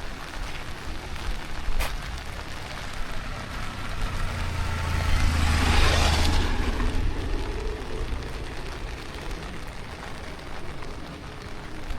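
A motor vehicle passes by on the road, its engine rumble and tyre noise swelling to a peak about halfway through and then fading away, the engine note dropping in pitch as it goes.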